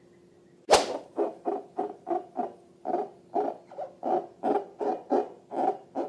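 A sharp pop about a second in, then slime being squished and kneaded by hand in a steady rhythm of short, squeaky squelches, about three a second.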